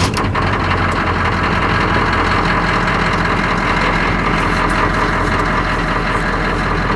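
1982 GMC Suburban's 6.2-litre diesel V8 idling steadily just after a cold start, glow plugs cycled, before high idle is engaged.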